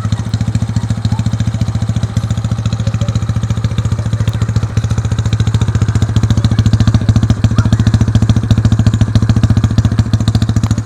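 Yamaha Mio scooter's single-cylinder engine, freshly built and still being run in, running steadily with a fast, even exhaust pulse. It gets somewhat louder from about halfway through.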